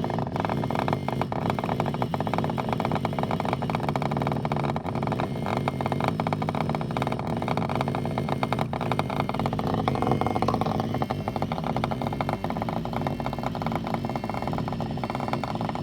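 Wireless vibrating egg buzzing steadily, its small vibration motor running with a dense rattling texture; the pattern shifts about ten seconds in, as it cycles through its vibration modes.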